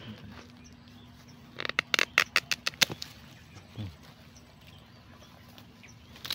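Hand pruning shears snipping plant stems and roots: a quick run of about eight sharp clicks over a second and a half, starting about a second and a half in.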